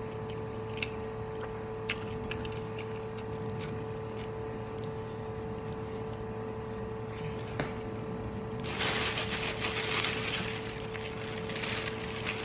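Steady low room hum with a few faint clicks of eating at a plate. About two-thirds of the way in, crackly rustling of a plastic bag starts and keeps going as the bag of white crackers is handled.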